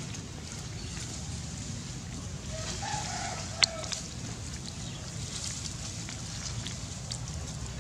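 A rooster crowing once, about two and a half seconds in, over a steady low rumble. A single sharp click falls near the end of the crow and is the loudest sound.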